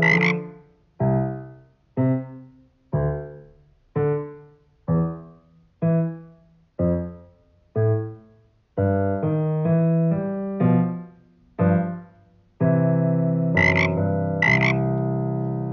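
Piano playing a slow, simple duet: treble notes struck about once a second, each dying away, over low accompaniment, with fuller chords from about nine seconds in and a long-held final chord. A short frog-like croak sounds at the start and twice more near the end.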